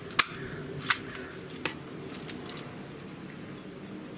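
Barra 1866 Junior multi-pump BB air rifle being worked before a shot: three sharp mechanical clicks in the first second and a half, as it is cocked, pumped once and closed, then a couple of fainter clicks.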